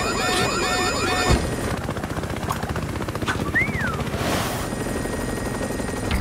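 Cartoon helicopter sound effect: a rapid, steady rotor chop. Repeating cartoon notes play over it for the first second or so, a short whistle rises and falls about three and a half seconds in, and a brief whoosh follows.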